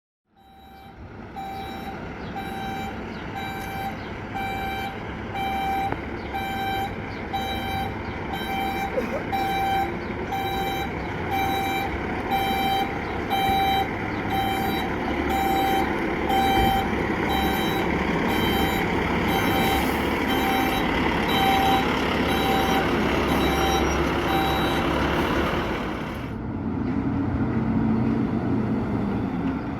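Fire engine reversing: its reversing alarm beeps about once a second over the running engine. The beeping stops about 25 seconds in and the engine keeps running.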